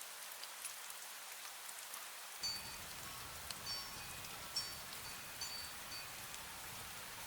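Steady fine rain with a small wind bell tinkling. From about two and a half seconds in, the bell rings about six times in short, high, clear notes.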